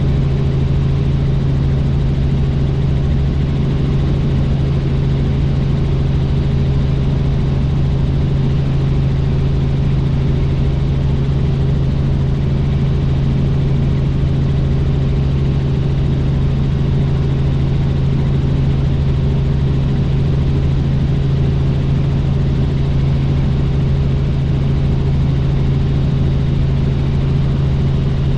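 Helicopter in flight: the steady drone of rotor and engine, with a strong low hum that does not change.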